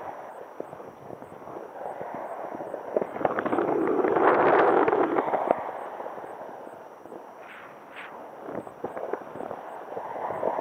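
Wind rushing and buffeting over the microphone of a camera on a paraglider in flight, with irregular crackling gusts. It swells loudest in the middle, then eases off.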